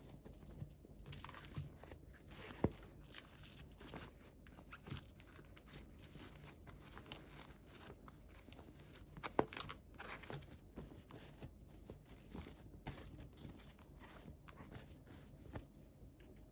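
Faint crinkling and tearing of toy packaging being opened by hand, with scattered small clicks and taps. The sharpest snap comes about nine seconds in.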